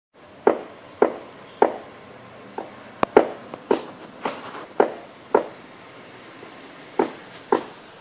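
Sharp knocks repeating about every half second with a few pauses, each ringing out briefly. A faint short rising whistle recurs every couple of seconds behind them.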